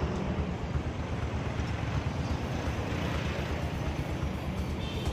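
Steady roadside traffic noise: a continuous low rumble and hiss of vehicles passing on a busy highway.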